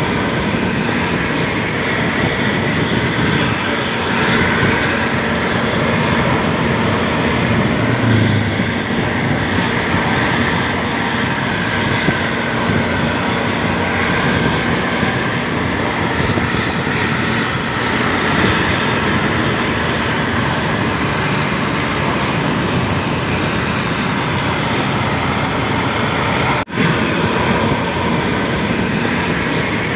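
Intercity bus's diesel engine with a loud aftermarket exhaust, running steadily on the road in a low, smooth growl, heard together with road noise. The sound breaks off for an instant about 27 seconds in.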